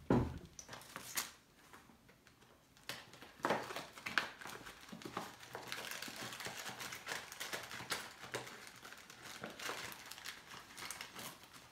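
Plastic packaging crinkling and rustling as small PC-case parts are handled, with two sharp knocks in the first second or so before the rustling starts about three seconds in.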